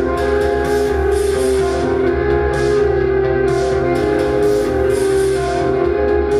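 Live band music without vocals: sustained guitar chords over a steady drum beat with regular cymbal hits.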